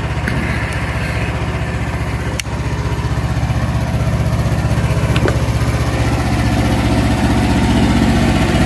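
Portable band sawmill's engine idling steadily, with one sharp click about two and a half seconds in.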